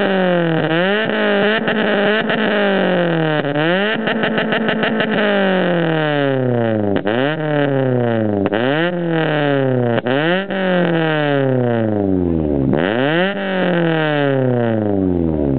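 Honda Civic coupe's engine revved again and again through an HKS duplex muffler with its silencer insert removed, on a 76 mm exhaust: each throttle blip climbs sharply and falls back to idle. About four seconds in, one rev is held briefly with a rapid stutter at the top, and the last few revs fall back more slowly.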